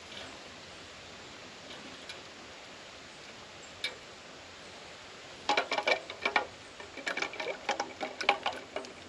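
Acorns dropped by hand into a metal pot, a quick run of clicks and clinks starting about halfway through.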